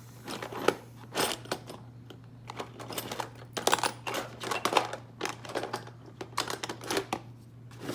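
Small hand tools clicking and clattering against one another as they are rummaged through by hand, an irregular run of sharp clicks.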